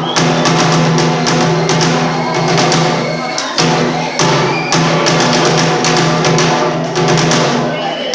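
Bitchū kagura accompaniment: a drum struck in quick, uneven strokes over a steady held pitched tone.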